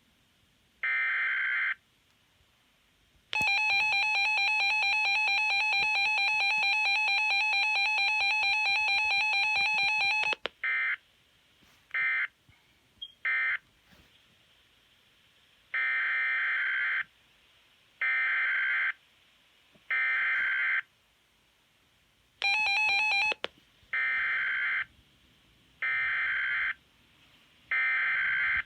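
Emergency alert data bursts and attention signal. About a second in comes a one-second screech of digital header data. It is followed by the two-tone alert attention signal, held for about seven seconds. Then come groups of three short data bursts, broken once, a little before the end, by a one-second blip of the attention tone.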